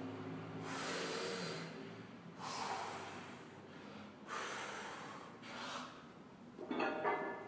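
A weightlifter breathing hard through the nose and mouth while bracing over a heavy barbell between deadlift reps: about four loud breaths, roughly a second and a half apart. A short, louder sound comes near the end.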